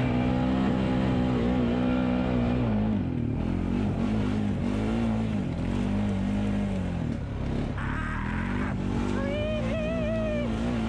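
ATV engine running under throttle on a trail ride. Its pitch holds steady at first, then dips and climbs again several times as the rider eases off and gets back on the gas through the turns.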